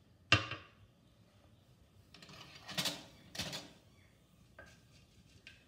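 Mustard seeds tipped into hot oil in a kadai: a sharp knock about a third of a second in. Then come two bursts of crackling and sizzling between about two and four seconds in, as a wooden spatula stirs the seeds in the oil, with a few small clicks near the end.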